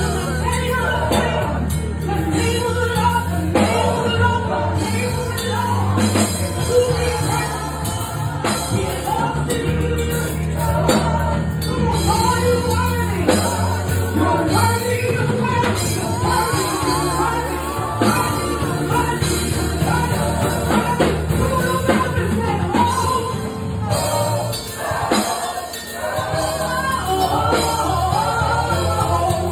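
Gospel choir singing with instrumental accompaniment, a steady bass line under the voices; it drops briefly quieter about three-quarters of the way through.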